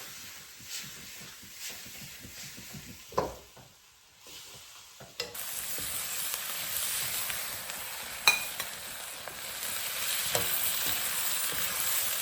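Wok stir-fry of sour pork with wood ear and green peppers, a metal spatula knocking and scraping on the wok. About five seconds in the sizzling jumps up to a steady loud hiss, and a sharp clank of the spatula comes about three seconds later.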